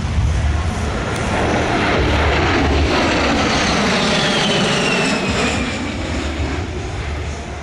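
A-10C Thunderbolt II's twin TF34 turbofan engines as the jet makes a banking pass overhead: a loud jet rush with a high whine that falls in pitch as it goes by, easing slightly near the end.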